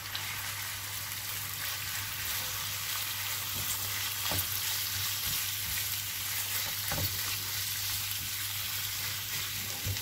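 Squid pieces sizzling in hot olive oil and garlic in a non-stick frying pan as a silicone spatula stirs them, with a couple of knocks of the spatula against the pan.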